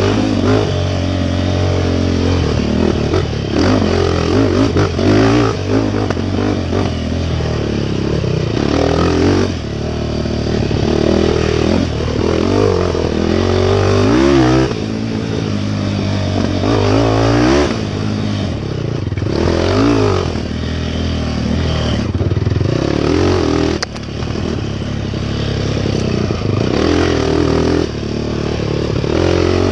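Off-road race motorcycle engine revving hard and dropping off again and again as the throttle is worked through the trail, with clattering and scraping from the machine over rough ground.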